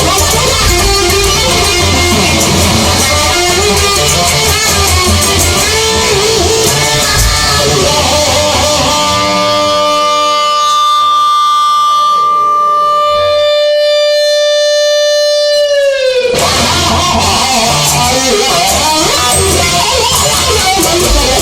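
Instrumental rock passage led by electric guitar over a full band. About halfway the band drops away, leaving held guitar notes that bend down sharply in pitch and break off before the full band comes back in.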